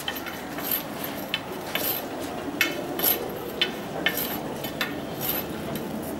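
Metal rod scraping and clinking in a sewer manhole as a drainage worker works it up and down to clear the blockage, in short uneven strokes about twice a second.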